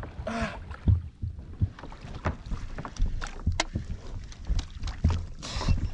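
Water slapping and knocking against the hull of a plastic sit-on-top fishing kayak in choppy sea, with wind on the microphone and a few scattered sharp clicks.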